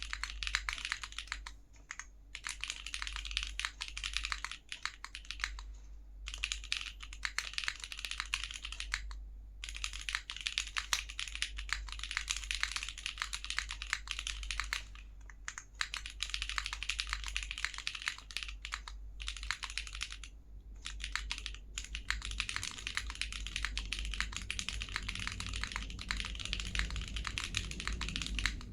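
Typing on a plateless, gasket-mounted ARC60 mechanical keyboard with Gateron Cream Soda switches, TX UXL 65g springs, no foam and GMK keycaps. It is a dense run of key clacks, broken by short pauses every few seconds.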